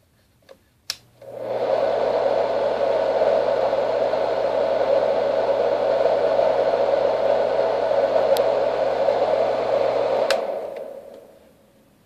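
Marpac Sleepmate fan-type white noise machine: a switch click about a second in, then its fan spins up within half a second to a steady rushing noise with a faint motor hum beneath. Near the end another click switches it off and the rush winds down over about a second.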